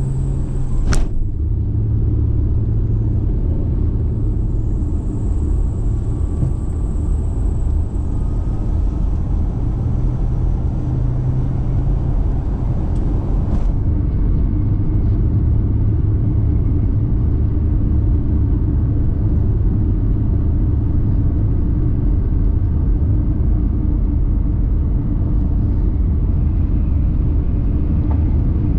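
Car driving at a steady speed: a continuous low rumble of road and engine noise, with a single sharp click about a second in.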